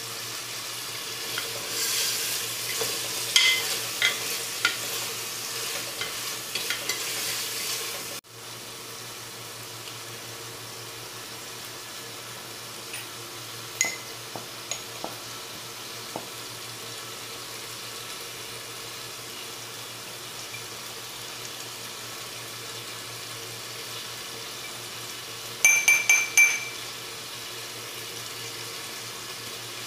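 Chicken frying in oil and tomato in a metal pot: a steady sizzle, with scattered clicks and scraping in the first third and a brief run of ringing taps against the pot near the end.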